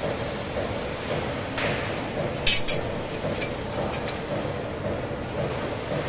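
Press brake running with a steady hum while a small sheet-steel part is bent in its tooling. Sharp metallic clinks come as the metal meets the punch and die, loudest in a quick pair about two and a half seconds in, with lighter ticks after.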